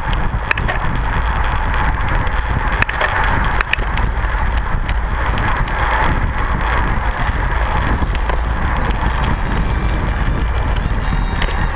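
Wind buffeting the microphone of a handlebar-mounted camera on a racing road bike at speed, over steady tyre and road noise, with a few sharp clicks in the first few seconds.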